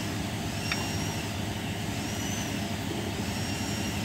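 A vehicle engine running with a steady low rumble, and a faint high whistling tone that rises, holds and falls about every second and a half.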